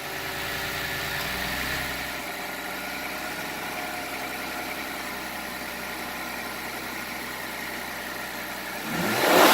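A 2018 Ford Fusion Sport's 2.7 L twin-turbo V6 idling steadily just after starting. Near the end it revs briefly, and the rev ends in a loud rush of air as the newly fitted aftermarket blow-off valve vents.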